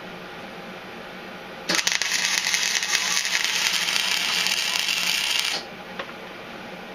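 Wire-feed welder laying a weld bead on a steel mower pulley: a steady, dense crackle for about four seconds that starts about two seconds in and cuts off suddenly, followed by a single click.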